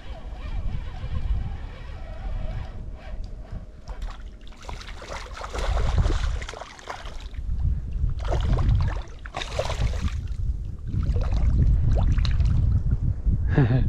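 Water splashing and sloshing in several bursts of a second or two as a hooked chub is played and brought in on a shallow riffle. Wind buffets the microphone throughout.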